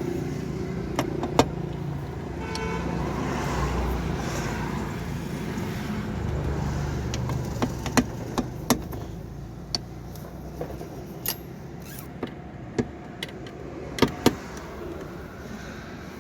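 Sharp metallic clinks and taps of spanners on nuts and bolts, scattered irregularly with a loud pair near the end, as the gear lever assembly is unbolted. A steady low rumble runs underneath.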